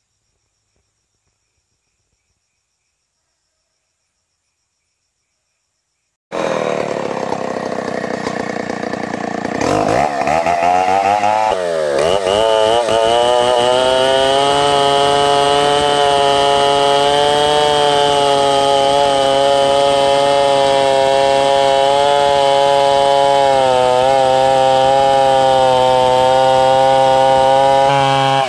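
About six seconds of silence, then a Stihl 070 chainsaw's large two-stroke engine cuts in running, revs up twice, and holds at high revs under load as it rips lengthwise through a beam of ulin ironwood to cut boards.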